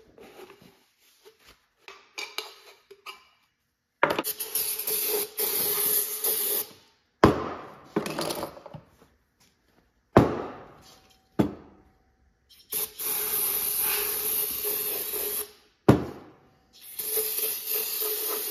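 Light rubbing and rustling, then three long hissing bursts of aerosol brake parts cleaner, each about three seconds, sprayed into an aluminium intake tube to flush out cutting grit. Sharp knocks come between the bursts.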